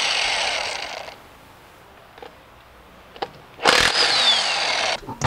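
Bosch half-inch cordless electric impact wrench hammering on a wheel lug bolt to loosen it, with a falling whine. It runs in two bursts: one that dies away about a second in and another of about a second and a half near the end.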